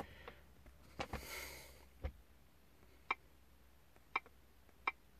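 Three short, sharp clicks about a second apart from a Launch CRP 429C scan tool as its touchscreen is tapped, after a sniff and a soft knock in the first two seconds.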